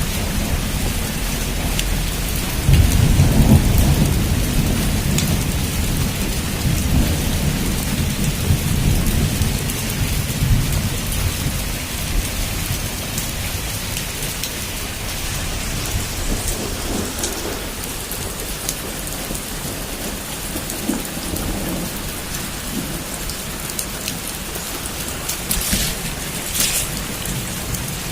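Heavy rain falling steadily, with a rolling thunder rumble about three seconds in that fades over the next several seconds, fainter rumbles later, and a few sharp crackles near the end.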